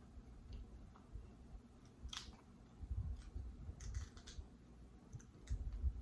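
Close-up eating sounds: chewing, with scattered sharp clicks and crackles, the clearest about two seconds in and around four seconds.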